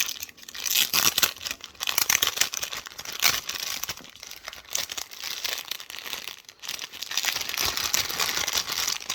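Plastic packaging of a sticker pack crinkling and rustling as it is handled and pulled open, in irregular crackles with a brief pause about six and a half seconds in.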